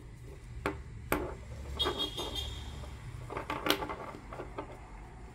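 Hands working nautical cord through crochet stitches with a needle: soft rustling and scraping with a few sharp clicks, the loudest about three and a half seconds in.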